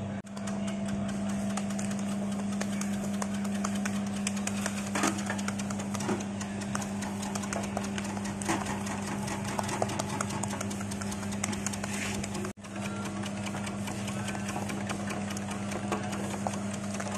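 Coconut copra slicing machine running: a steady motor hum under a dense, rapid clatter of blades cutting coconut flesh into thin slices. The sound breaks off for an instant about twelve seconds in, then resumes.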